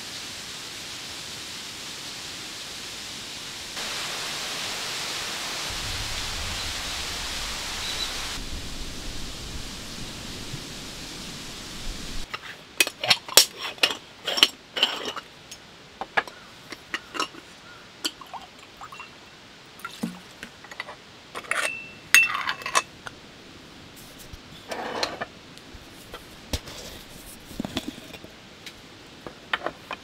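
A steady outdoor hiss for about the first twelve seconds, then a quick run of sharp metallic clinks, taps and scrapes as a stainless moka pot is taken apart and the metal lid of a coffee tin is handled on a wooden table, a few clinks ringing briefly.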